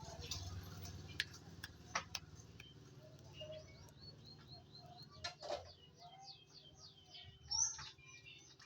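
Birds calling: a rapid run of high, repeated chirps fills the second half, with faint short low notes and scattered sharp clicks over a steady low hum.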